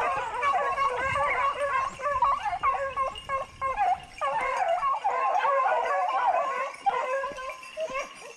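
A pack of beagles baying on a wild boar, several dogs giving tongue at once in overlapping howls and yelps, with only brief lulls.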